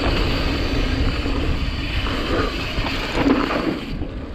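Wind buffeting the camera microphone while a mountain bike rolls down a dirt trail, its tyres running over the dirt; the noise eases off a little near the end.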